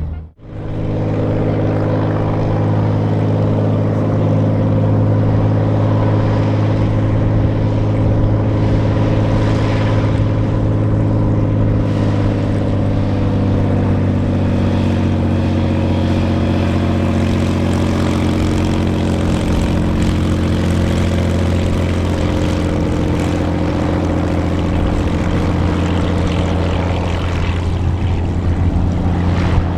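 Aermacchi AM.3C's geared, supercharged Lycoming flat-six piston engine and propeller running steadily as the aircraft taxis. The engine note eases slightly lower partway through.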